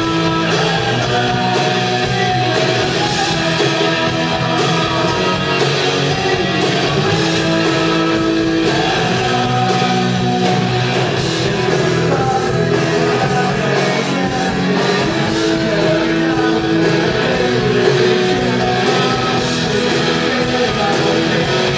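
A rock band playing live, with electric guitar, drums and a singer, running through a song.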